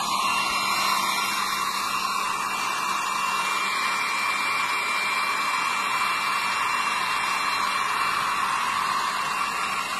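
Blow dryer running steadily: an even rushing blow with a faint steady whine over it.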